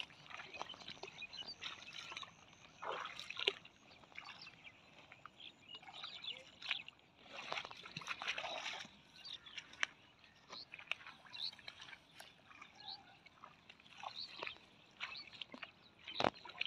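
Footsteps sloshing and splashing irregularly through shallow water and wet weeds as a person wades.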